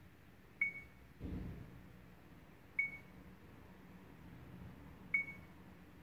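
Touchscreen key beeps from a Mio MiVue 786 dashcam: three short high beeps about two seconds apart, each confirming a tap on the menu. A low handling thump comes just after the first beep.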